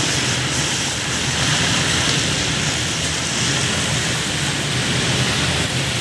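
Gas wok burner burning under a large wok of crabs frying in oil, a steady rushing noise with sizzling.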